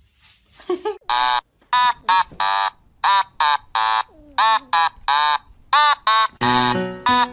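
A rapid string of short, high, squeaky calls, each rising and falling in pitch, with music coming in near the end.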